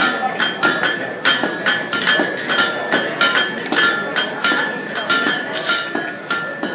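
Hand hammer striking hot steel on a blacksmith's anvil in a quick, uneven rhythm of about four blows a second, each blow leaving a bright metallic ring from the anvil.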